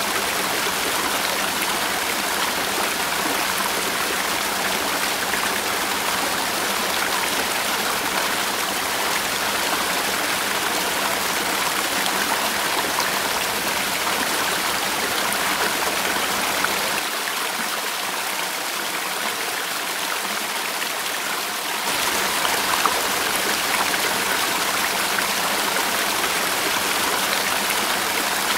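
Mountain stream rushing over rocks and through small cascades, a steady rush of water. About two-thirds of the way through, it turns thinner and slightly quieter for about five seconds, losing its low rumble, then comes back full.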